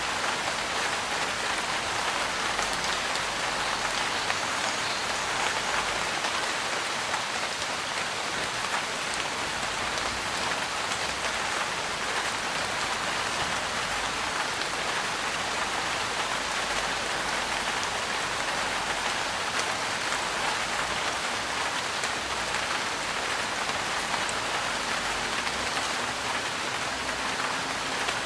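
Steady rain falling on the roof of a trailer, heard from inside: an even hiss of dense drops with many small ticks, holding level throughout.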